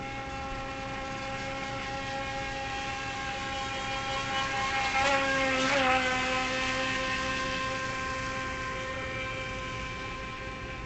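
Feilun FT009 RC speedboat's brushless electric motor running at speed, a steady high-pitched whine. It grows louder toward the middle, dipping slightly in pitch there, then fades as the boat runs past and away.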